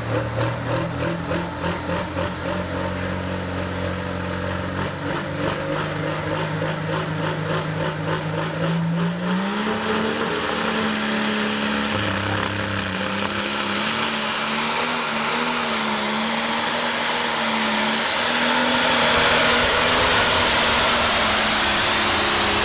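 Pulling tractor's engine running with a fast, throbbing rhythm, then revving up about nine seconds in and running hard at high revs as it pulls the sled, getting louder near the end.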